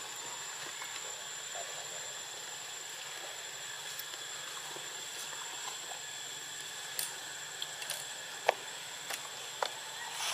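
Steady background hiss with a thin, high, unbroken whine running under it. In the second half come a few scattered light clicks, the sharpest about eight and a half seconds in.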